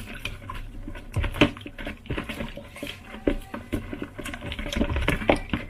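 An orange being scrubbed by hand while it is washed: irregular rubbing, patter and small knocks.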